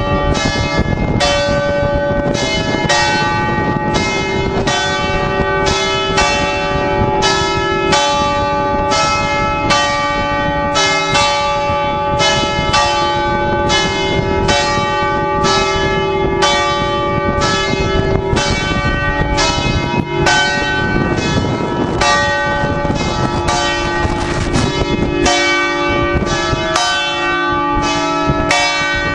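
Several large bronze church bells of St Mark's campanile ringing together, heard close up inside the belfry. Clapper strikes come about two a second, and each strike rings on into the next so the bells' tones overlap.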